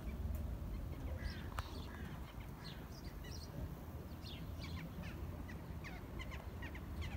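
Birds chirping outdoors: many short calls that slide down in pitch, scattered throughout, over a steady low rumble.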